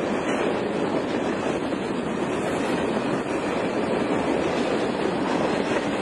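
Freight train tank cars rolling past close by: a steady rumble of steel wheels on the rails.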